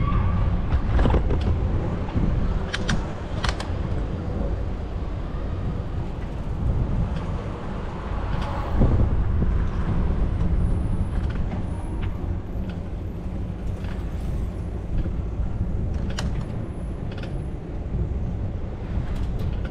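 City street traffic heard while cycling, under a steady low rumble of wind on the microphone, with a few sharp clicks and knocks near the start and once more later on.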